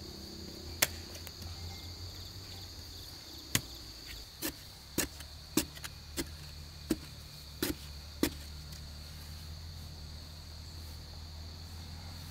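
Insects drone steadily in a high tone. Over it come about nine sharp knocks, irregularly spaced between about one and eight seconds in, as a tool strikes wood while the coop is being built.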